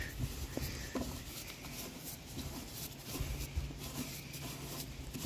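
Faint scraping and a few light ticks of plastic drain fittings being handled, over a low steady hum.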